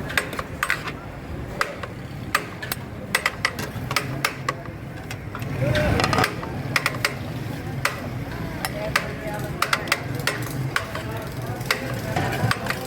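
Busy restaurant kitchen: many irregular sharp clanks and knocks of metal utensils and pots, over background chatter and a steady low hum.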